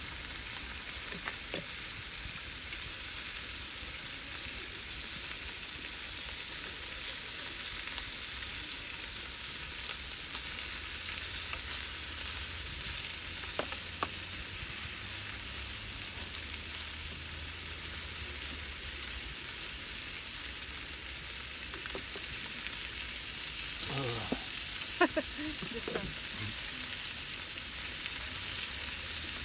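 Meat sizzling steadily in a small grill pan, a high frying hiss, with a few light clicks of chopsticks against the pan and a short burst of louder handling sounds near the end.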